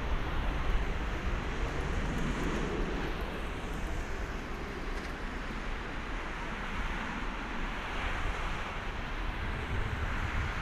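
Jet engines of an Airbus A330-300, Rolls-Royce Trent 700s, running at low taxi power, a steady noisy rush with a strong low rumble, with wind buffeting the microphone.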